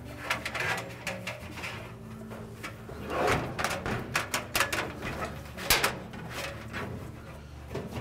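Sheet-metal dryer drum being shifted and handled inside the cabinet, giving a string of scrapes, knocks and rattles, busiest from about three to six seconds in.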